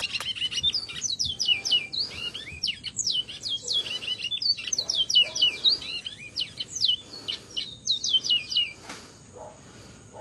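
A songbird known locally as a bajero singing a long, fast, varied song of sharp whistled notes, most of them sliding downward; the song stops near the end.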